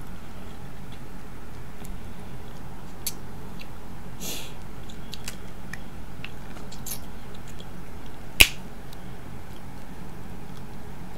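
Snow crab leg shells cracked and pulled apart by hand: scattered small clicks and crackles, with one sharp, loud snap about eight seconds in.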